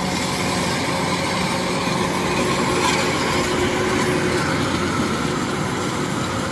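Kubota DC-93 Extra rice combine harvester running steadily as it cuts and threshes, its diesel engine and threshing drum working together. The machine is running heavy, loaded by a dense, high-yield rice crop.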